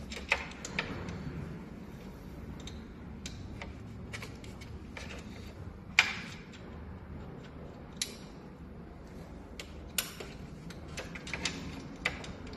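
Hand tools clicking and tapping on metal while mounting screws are removed from a treadmill drive motor: a few scattered sharp clicks, the loudest about six seconds in, over a low steady background.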